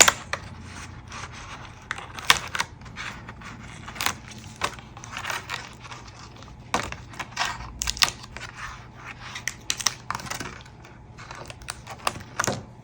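Hands picking at and peeling packaging: irregular crinkles, scrapes and small clicks of tape and wrapping being worked off a small parcel.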